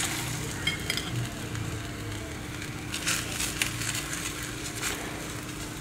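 Faint sizzle of a stuffed missi roti roasting on a tawa, with a few light scrapes and taps of a steel spoon spreading oil over its top about three to five seconds in. A faint steady hum underneath.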